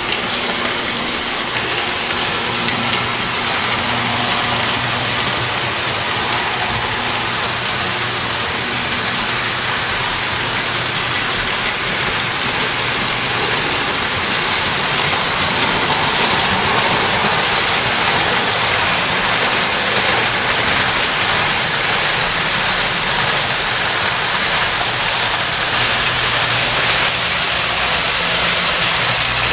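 O scale three-rail toy trains running on tinplate track: a steady rolling whir and rattle like hiss, growing a little louder about halfway through.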